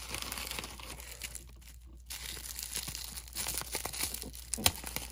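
Clear plastic wrapping crinkling and crackling as a small item is unwrapped by hand, with one sharper snap about four and a half seconds in.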